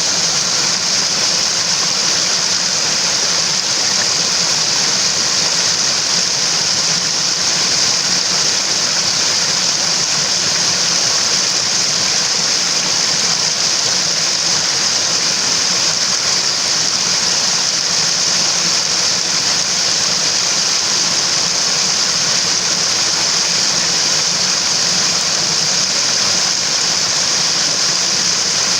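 Mountain stream water rushing steadily: an even, unbroken hiss, brightest in its high range.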